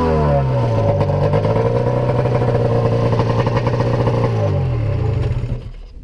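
100 hp two-stroke snowmobile engine swapped into a John Deere Gator, its revs falling and then holding steady as it drives. Near the end the revs drop again and the engine sound winds down and fades away.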